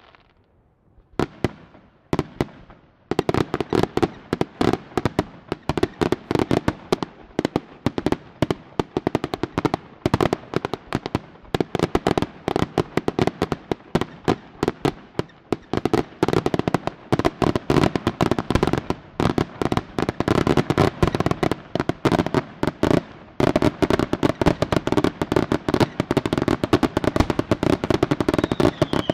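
Aerial fireworks display: a couple of single bangs, then a dense, rapid run of shell bursts and crackling from about three seconds in, with a short lull about three-quarters of the way through.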